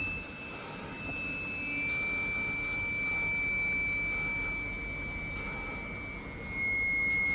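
eVent Medical Inspiration LS ventilator passing gas flow with a steady high-pitched whine, which drops in pitch in steps about two seconds in and again near the end as the flow is turned down during flow calibration.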